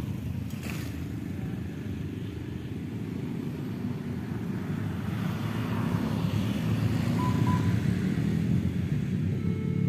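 Steady low rumble of outdoor background noise, swelling a little about six seconds in.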